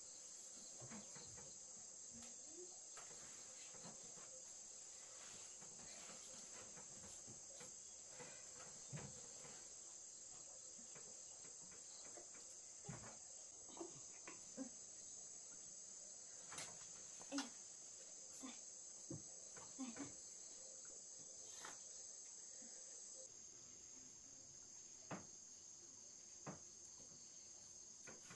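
Steady high-pitched insect chorus, crickets or similar, that eases slightly near the end, with scattered faint clicks and knocks.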